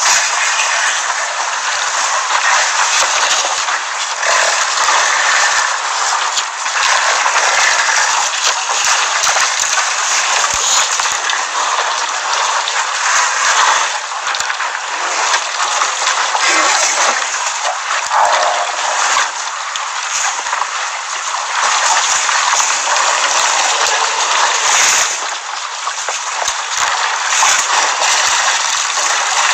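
Water at a waterhole splashing and sloshing steadily as an elephant herd drinks and wades, a continuous noisy wash that swells and eases without a beat.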